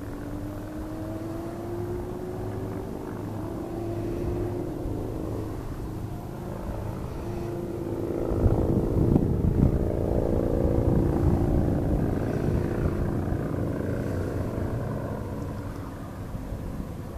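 A steady motor or engine hum whose pitch rises slowly over the first few seconds and swells louder about halfway through, over low rumble of wind on the microphone.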